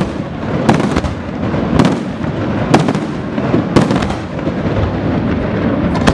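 Aerial fireworks display: shell bursts going off sharply, about one a second, over a continuous crackling wash.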